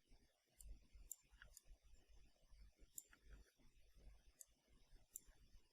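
Faint, sharp computer mouse clicks, about six spaced irregularly, over near-silent room tone.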